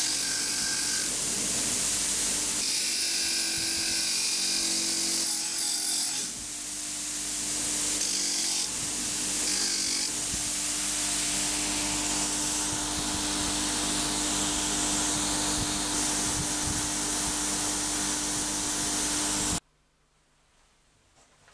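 Villager VLN355 bench grinder running with a wire wheel scrubbing rust off a steel hand file: a steady motor hum under a loud, harsh hiss that swells and eases as the file is pressed and moved against the brush. The sound stops abruptly near the end.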